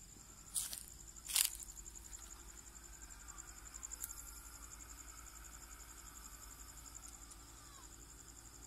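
Crickets trilling steadily, a continuous high pulsing tone. Two short noisy bursts stand out about half a second and a second and a half in.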